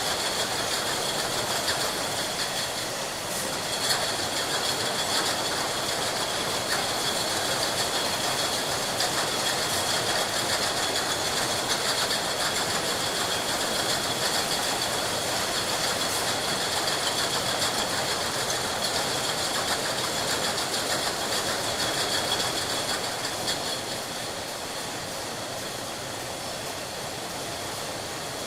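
Glass bottles clinking and rattling against one another on a factory line, a dense continuous clatter with a glassy ring, over steady machinery. It eases a little near the end.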